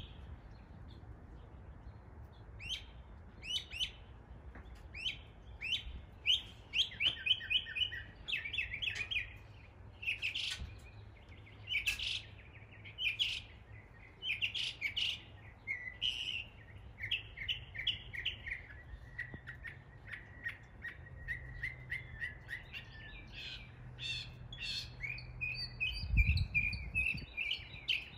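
Northern mockingbird singing a long run of varied phrases, imitating the calls of other local birds and repeating each phrase several times in quick series. A brief low rumble near the end.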